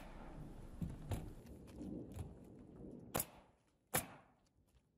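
Pneumatic coil roofing nailer firing two nails through metal drip edge into the roof decking, about three and four seconds in, each a sharp crack. Fainter taps and handling noise come before.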